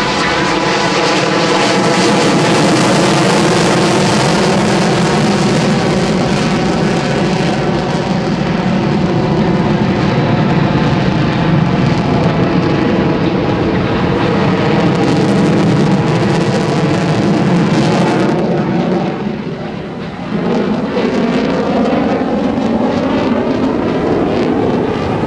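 F-16CJ fighter jet flying past, its jet engine noise loud and continuous, with a sweeping, phasing whoosh as the pitch bands shift; the sound dips briefly near the end and then swells again.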